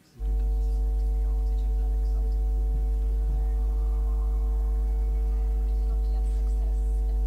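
Loud, steady electrical mains hum from the hall's sound system, cutting in abruptly just after the start. It comes in place of the promo video's soundtrack, a sign of a faulty audio connection.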